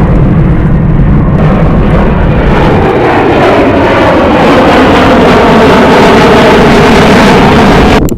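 Jet airliner passing close by with its engines running loud, a whining tone in the noise gliding down and back up as it goes past. The sound cuts off suddenly near the end.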